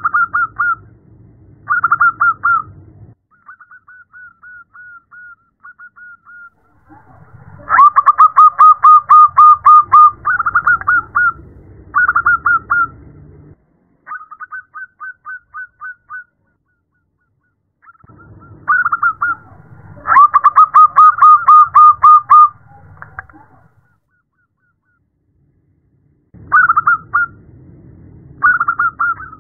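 Zebra dove (perkutut) calling: phrases of rapid staccato coos run together into bubbling trills, several phrases with short pauses between. The loudest phrases come about eight seconds in and again about twenty seconds in. The call is presented as a female calling a male.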